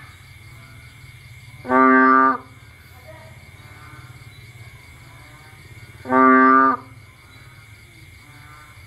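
Bullfrog giving two loud, low, moo-like calls about four seconds apart. Each call lasts under a second and holds a steady pitch.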